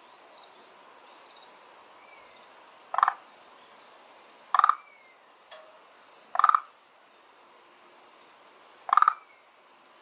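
A frog calling: four short croaks, each a quick rattle of pulses, spaced about two seconds apart.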